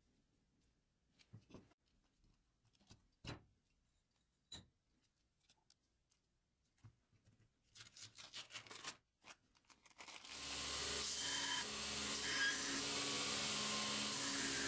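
Scattered light knocks and clicks of a steel C-clamp and a steel workpiece being handled on a wooden bench. About ten seconds in, a belt grinder comes in and runs steadily with a motor hum and belt hiss.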